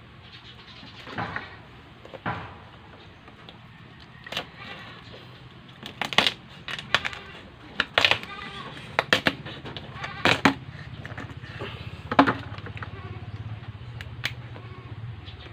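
Spiny lobster shell cracking and clicking as it is pried and twisted apart by hand at the joint between head and tail: a run of sharp cracks, thickest in the middle. A low steady hum comes in about halfway.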